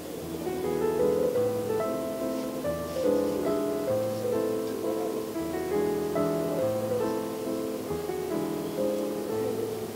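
Background piano music: a slow run of sustained chords over bass notes that change about once a second.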